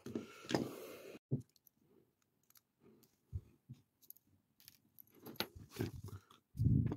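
Small clicks, taps and rustles from hands handling a small plastic model locomotive and a paper instruction sheet, with a few dull bumps near the end.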